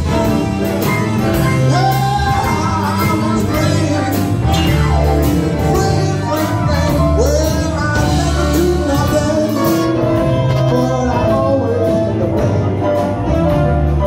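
Live big band playing an upbeat dance number with a steady beat: saxophones and trombone over drum kit and congas.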